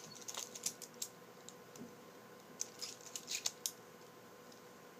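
Light clicking and clattering from a homemade butterfly knife's bolt-and-washer handles as it is flipped, in two quick clusters: one in the first second and one about two and a half seconds in.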